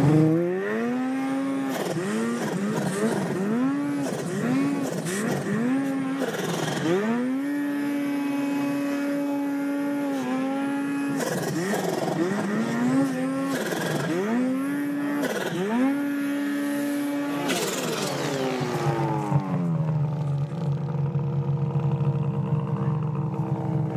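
Two-stroke snowmobile engine revving up and down under throttle in deep snow, the revs rising and falling every second or two. About eighteen seconds in it winds down and settles to a steady idle.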